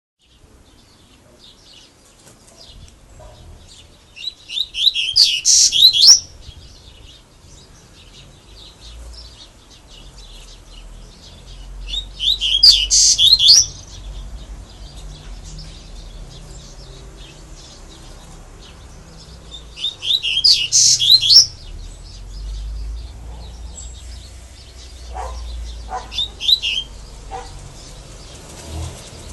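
Double-collared seedeater (coleiro) singing a 'grego'-type song. There are three loud phrases of rapid high notes, each about two seconds long and some eight seconds apart, with soft twitters between them and a fourth phrase beginning at the very end.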